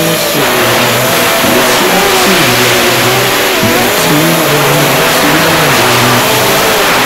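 FPV quadcopter's electric motors and propellers whining, the pitch rising and falling constantly with the throttle, over a loud rush of air noise.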